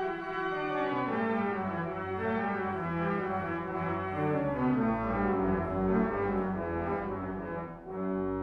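Organ playing sustained chords with moving parts, a deep pedal bass coming in about halfway through. The sound dips briefly near the end.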